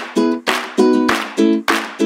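Background music: chords strummed on a plucked string instrument at a quick, steady rhythm, about three to four strums a second.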